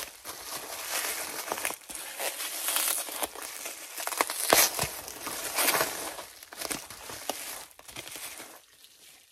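Bubble-wrap packaging crinkling and crackling as it is pulled open and unwrapped by hand, in irregular bursts of rustling that die away near the end.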